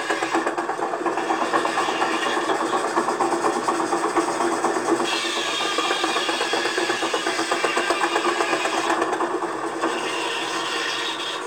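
Small machine running steadily with a fast, even rattle: the working machinery of a G scale model lumber mill.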